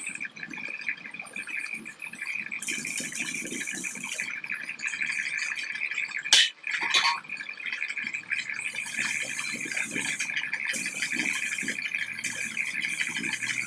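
MIG welding arc crackling in several short runs, starting and stopping every second or two, with one sharp knock a little past the middle.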